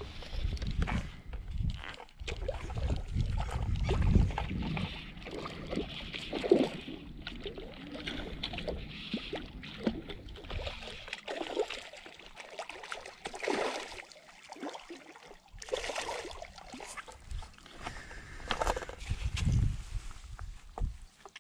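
Irregular rustling, scuffing and knocking of an angler moving about with rod and line in flip-flops on sand, with light splashing from a small hooked fish at the water's edge.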